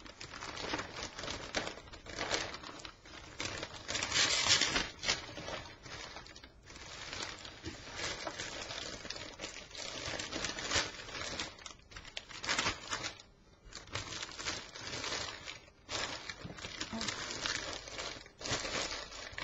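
Large clear plastic vacuum storage bag crinkling and rustling as it is handled, opened out and folded flat, in irregular bursts with brief pauses.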